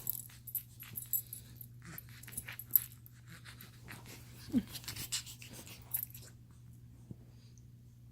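A run of short, scratchy rustling and crackling noises that stops about six seconds in, over a steady low hum.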